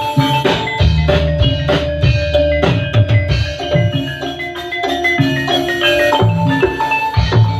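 Live gamelan ensemble with drum kit playing through a PA: ringing metallophone notes over repeated struck hits and low drum beats.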